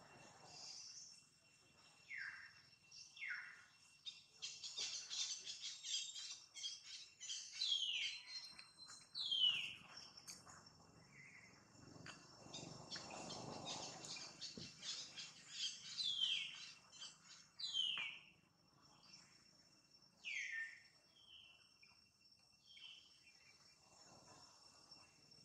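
Wild birds calling: repeated short whistled notes that slide downward, amid busy chirping, over a faint steady high insect whine. A soft rustle about halfway through.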